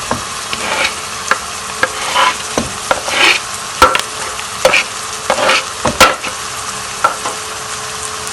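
Onion and carrot sizzling in oil in a frying pan, with a utensil scraping and knocking against the pan in irregular strokes as the vegetables are stirred.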